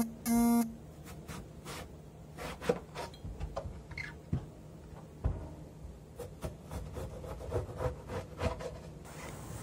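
Two short electronic beeps right at the start. Then scattered light knocks and scrapes of a knife and peeled cucumber pieces being cut and moved on a wooden cutting board.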